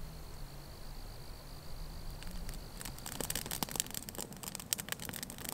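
Faint steady background hum, then from about three seconds in a wood campfire crackling with many sharp irregular pops.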